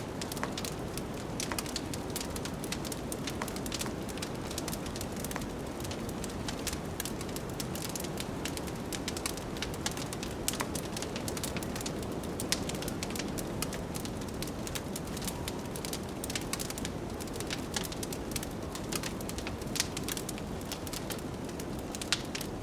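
Wood fire crackling, with frequent small snaps and a few louder pops, over a steady low rush of blizzard wind.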